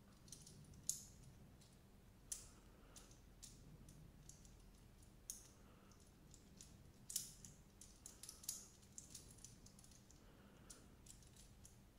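Faint, irregular clicks of hard ABS plastic as the hinged blocks of a Xiaomi Mitu infinity fidget cube are flipped and folded over in the hand.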